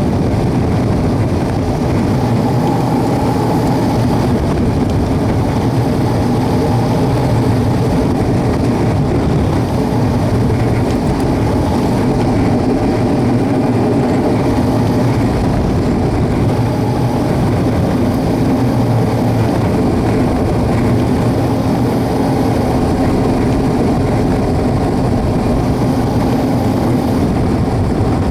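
Engine and propeller of a WAR Corsair homebuilt replica running steadily and loud, with a constant low drone and no change in pitch.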